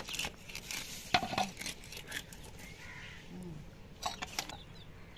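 A hilsa fish being cut on a curved boti blade: irregular sharp clicks, scrapes and metallic clinks as the blade goes through the fish, loudest about a second in, with another cluster near the end.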